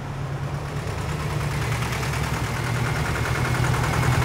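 Volkswagen T1 bus's air-cooled flat-four engine running as the bus approaches, growing steadily louder.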